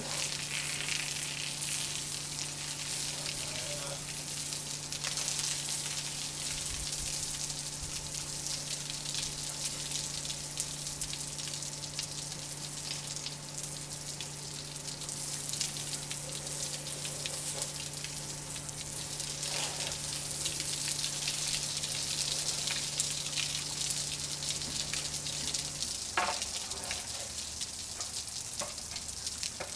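Soft-wash sprayer hissing as cleaning solution is sprayed onto clay barrel roof tiles, with a steady low hum underneath that cuts off near the end.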